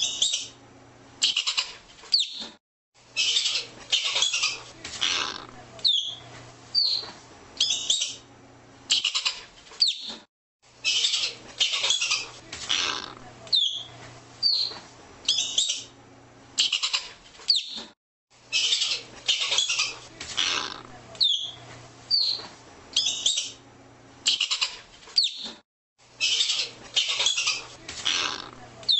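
Arctic ground squirrel calling: short, sharp high chirps about every second, broken every several seconds by longer bursts of rapid chattering.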